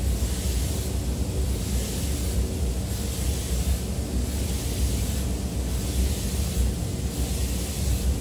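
Compressed-air spray gun hissing in short passes, swelling and fading about once a second, over the steady low rumble and hum of a paint booth's ventilation.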